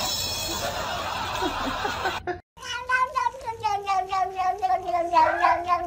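A tabby cat gives one long, drawn-out yowling meow with a fast rasping flutter, slowly falling in pitch, while it is being stroked. It is preceded by about two seconds of a steady noisy rustle.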